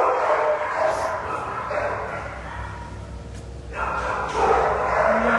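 Shelter dogs barking and yipping in their kennels, easing off for about a second past the middle, then starting up again.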